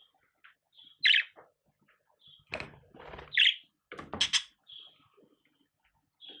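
Budgerigar giving short, scattered chirps, mixed with sharp knocks and taps as it pecks at its cage mirror. The loudest chirps come about a second in and just past three seconds.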